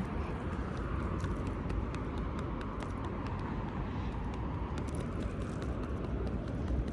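Steady outdoor background noise with a low hum and a few faint clicks.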